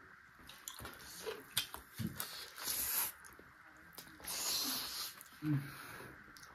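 Close-miked eating of chicken feet: scattered wet mouth clicks and smacks, and two longer breathy, sucking sounds about three and about four and a half seconds in. A brief low hum comes near the end.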